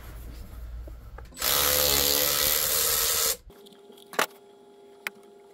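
A handheld power tool runs steadily for about two seconds and cuts off suddenly, turning a 13 mm bolt on the intake heater housing. Two light metallic clicks follow.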